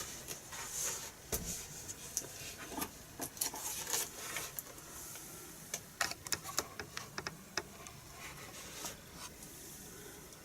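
Scattered light clicks and taps, irregularly spaced, from a FrSky Taranis radio transmitter being handled as its switches and sticks are worked.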